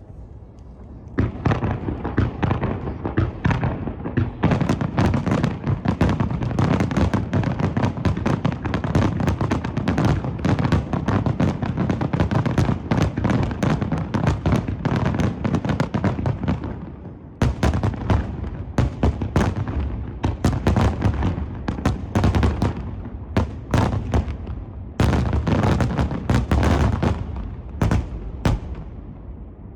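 Aerial fireworks bursting over the sea in a rapid barrage, many loud bangs overlapping. A brief lull comes about two-thirds of the way through, then another dense flurry that stops shortly before the end.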